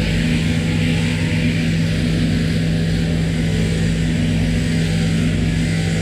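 Electric sheep-shearing machine running steadily: a constant-pitch mechanical hum with a hiss above it.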